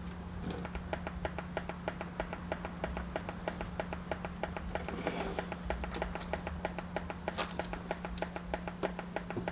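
Pulsating clicks, about five a second, over a steady low hum, coming from a Yamaha mixer board's output through a headphone: the board's fault under repair.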